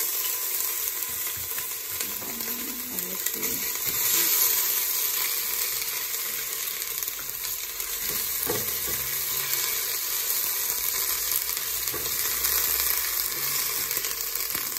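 Ginger, garlic and chili paste sizzling steadily in hot oil in a stainless steel pot, stirred with a silicone spatula.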